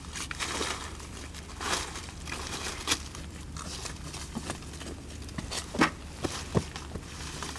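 Rustling of hands sifting through loose potting soil, with scattered clicks and a few sharper knocks as sweet potatoes are picked out and handled.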